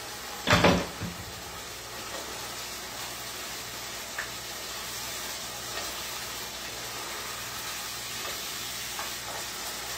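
Ground meat sizzling steadily in a pot on an electric stove, with a single loud knock about half a second in.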